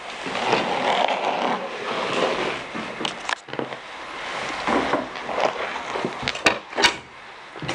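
Rustling and scraping handling noise from someone moving about with a handheld camera, broken by several sharp clicks and knocks, the two loudest near the end.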